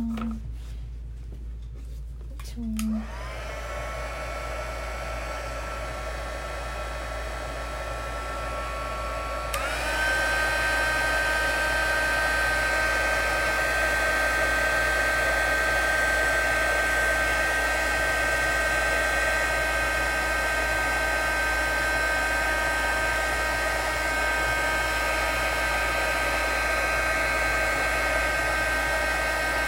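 Handheld embossing heat tool blowing hot air over watercoloured card stock to dry the paint. It starts about three seconds in with a rising whine as the fan spins up, then steps up higher and louder about ten seconds in and runs steadily.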